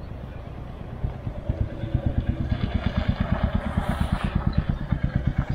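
A motorcycle riding up and pulling in close. Its engine is a rapid, even thumping that grows louder from about a second and a half in.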